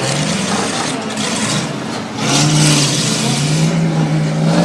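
Monster truck engine running, then revving up about two seconds in, its pitch climbing slowly as it pulls.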